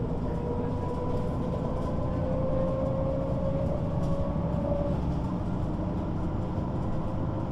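MAN Lion's City articulated bus under way, its engine rumbling with a rising drivetrain whine as it accelerates; the whine breaks off about five seconds in.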